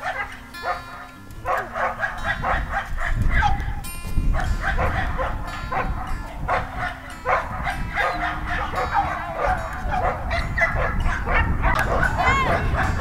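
Several Siberian huskies barking and yipping in short, repeated calls as they play together.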